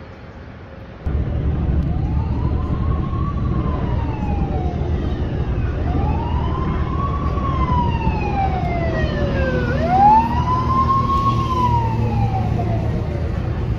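A siren wailing, its pitch sweeping up quickly and falling slowly in long, repeated arcs, over a steady low rumble that starts suddenly about a second in.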